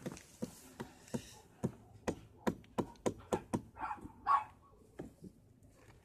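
A run of sharp taps and knocks, about three a second, with a dog giving two short yips about four seconds in.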